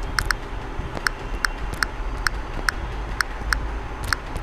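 Key-press clicks of a smartphone's on-screen number keypad as a phone number is typed in: about a dozen short ticks at an uneven typing pace, over a low steady hum.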